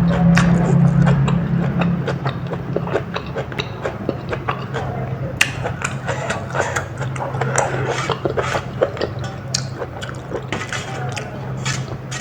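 Close-miked chewing and mouth sounds: a dense, irregular run of small sharp clicks and crunches as food is bitten and chewed, over a steady low hum.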